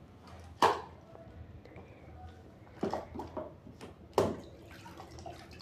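Three sharp knocks, about 0.6 s, 2.8 s and 4.2 s in, from an Esquire 360 spin mop being handled, with a few lighter clicks around three seconds. The last knock comes as the mop head is set down into its plastic spin bucket.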